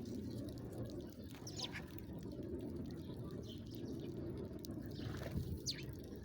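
A bird giving two brief, high, falling chirps, about a second and a half in and again near the end, over a steady low rushing noise.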